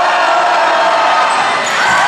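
Basketball crowd in a gymnasium cheering and shouting: a steady din with some voices held on one pitch.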